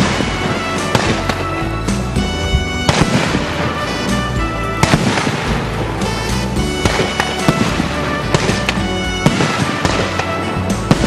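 Fireworks going off, with repeated sharp bangs and crackles through the whole stretch, over background music.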